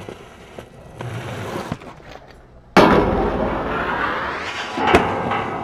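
Inline skates rolling on concrete, then a loud grind that starts suddenly about three seconds in and lasts about two seconds. A sharp impact near the end, typical of a skater landing.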